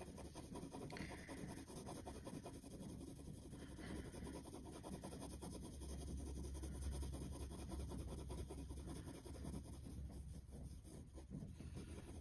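Graphite pencil scratching faintly on paper in quick small circular strokes as it shades a circle into a sphere.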